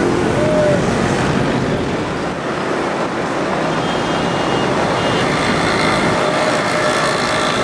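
Steady din of busy city street traffic: a dense, even wash of engine and tyre noise.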